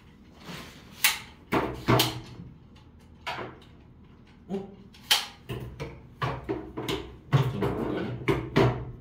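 Airsoft K1A rifles being taken apart by hand: about a dozen sharp, irregular clicks and clacks of pins, receiver and small parts being pulled and set down, coming thicker in the last few seconds.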